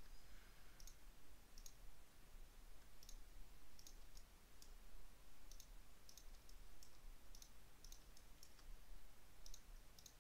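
Faint computer mouse button clicks, spaced irregularly and often in quick pairs, over a low steady hum and hiss.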